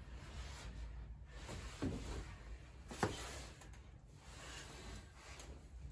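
Faint shuffling and soft knocks of a person in slippers stepping onto and shifting weight on a wooden furring strip glued to a van's metal floor, with one sharper knock about three seconds in.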